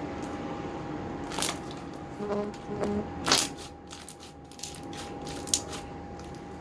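Mixed homemade slime being squeezed and handled, with a few sharp clicking pops about a second and a half in, around three seconds in and near the end.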